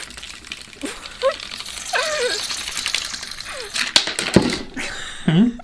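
A metal house key prying and scraping at the crown cap of a glass Coke bottle, with the keys on the ring rattling: a run of quick clicks and scrapes, and a sharper click about four seconds in.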